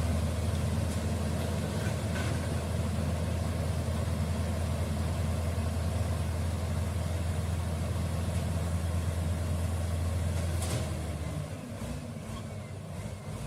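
Komatsu D85E-SS bulldozer's diesel engine running with a steady low drone. About eleven seconds in there is a sharp click, and the drone drops away and the sound gets quieter.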